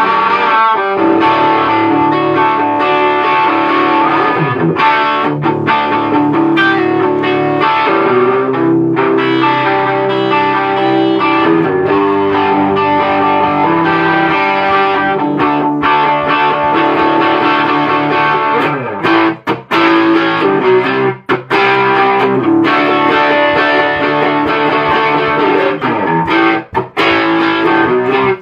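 Electric guitar played through an overdriven amp: held notes and chords with a few string bends, breaking off briefly a few times in the second half.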